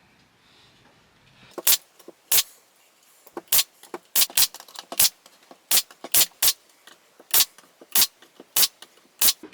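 Brad nails being driven into plywood during glue-and-nail carcass assembly: about sixteen sharp strikes at uneven intervals, starting about one and a half seconds in.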